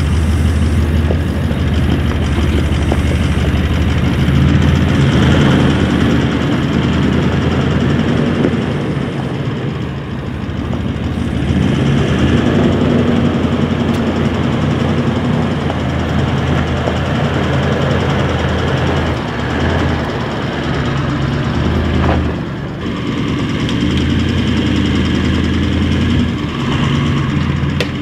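Toyota LandCruiser 76 series V8 turbo-diesel engine running at low revs as the four-wheel drive crawls over a rocky, rutted bush track. The engine note rises and dips slightly with the throttle.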